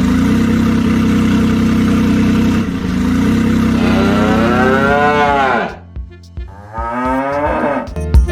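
Cows mooing: a long, low, held moo, then a second one that rises and falls in pitch, then a shorter moo near the end.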